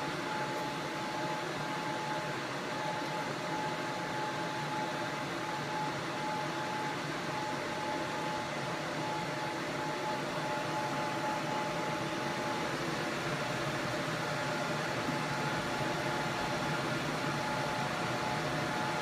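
Steady fan hum with a thin steady whine over it; about two-thirds of the way through, the whine shifts to a higher pitch.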